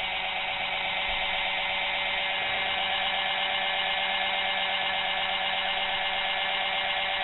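Kitchen mixer's brushed motor running steadily on about 19 volts DC from a transformer and bridge rectifier, its field coil wired in parallel with the brushes, with the gear train turning. A steady whine with a fast flutter.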